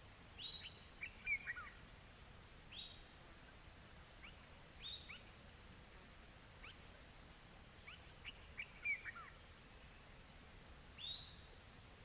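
Insects chirping in a steady high-pitched pulse, about four pulses a second, with a bird giving short downward-sliding calls every few seconds.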